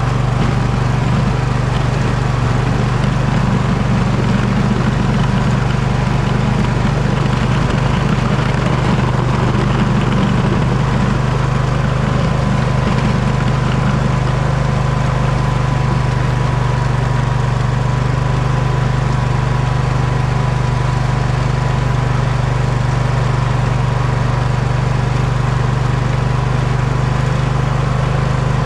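Poulan lawn tractor's engine running steadily at an even speed, with a thin steady whine above it.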